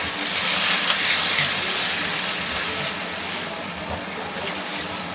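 Tomato wedges sizzling and hissing in a hot frying pan, the steam hiss of a splash of water just added to the hot oil. The hiss swells in the first couple of seconds, then slowly dies down.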